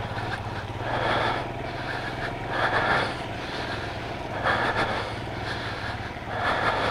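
Royal Enfield Himalayan's single-cylinder engine running at low revs on a slippery wet off-road track, its rear tyre short of traction. A hissing rush swells and fades about every two seconds.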